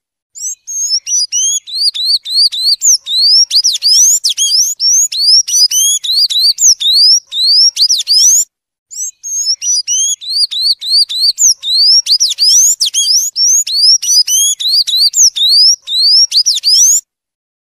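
Sayaca tanager singing: a fast run of thin, squeaky, high notes, most of them sliding upward. It pauses briefly about halfway and stops shortly before the end.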